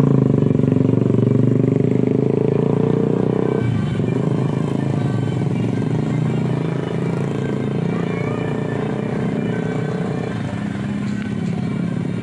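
A Basuri telolet bus horn recording played through a small Bluetooth speaker on a bicycle. Several horn tones sound together, holding and then shifting in pitch, with a sharp change to a new set of notes about three and a half seconds in.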